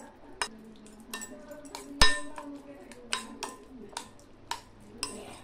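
A metal spoon clinking and scraping against a bowl while stirring a wet tomato chutney, with irregular clinks about two a second and one louder knock about two seconds in.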